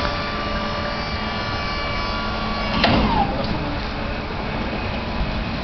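Box-truck hydraulic liftgate motor running with a steady whine, cutting off nearly three seconds in with a sharp metal clank and a short falling squeal.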